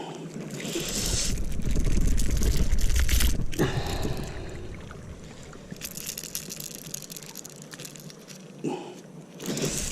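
Wind gusting on the microphone as a low rumble with hiss, strongest for a couple of seconds starting about a second in, then easing to a lighter rushing noise.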